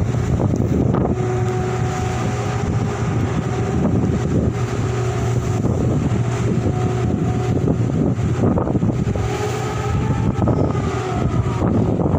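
A large diesel engine running steadily with a low drone, with gusty wind buffeting the microphone.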